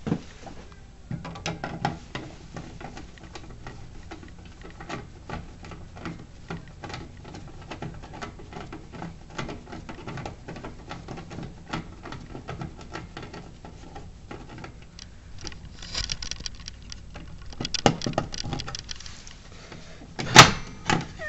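Irregular metallic clicks, scrapes and rattles of a hex reset key being worked in the lock of a Fire-Lite BG-10 manual pull station, with one sharp loud snap about 20 seconds in. The station's handle is being reset and is not popping back up.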